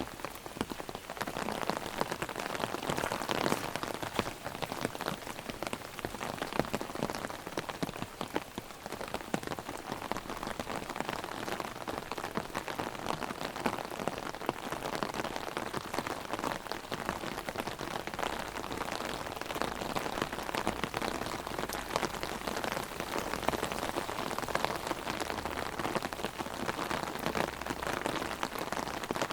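Heavy rain drumming on an open umbrella overhead: a dense, steady patter of countless drop impacts.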